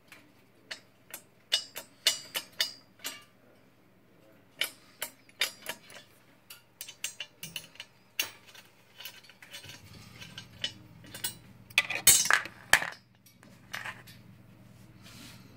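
A steel Allen key clinking and clicking against a metal swingarm dropout and its adjusting bolt. The sharp clicks come irregularly and are loudest in a quick cluster about twelve seconds in. A low steady hum comes in about ten seconds in.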